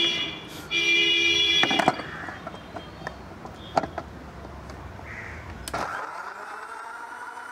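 Crow cawing loudly in the first two seconds and a few clicks as the jar is set on its base. About six seconds in, an electric mixer grinder starts and runs with a steady hum, blending papaya smoothie.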